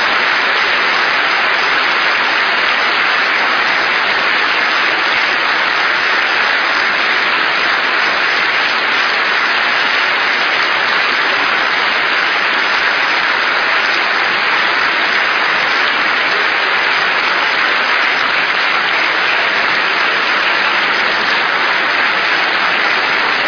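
A large audience applauding: steady, sustained clapping from many hands, keeping an even level throughout.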